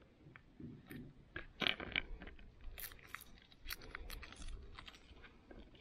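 Garlic being trimmed with a knife and peeled by hand on a plastic cutting board: scattered small taps, clicks and the crinkle of papery skin, the loudest tap about a second and a half in.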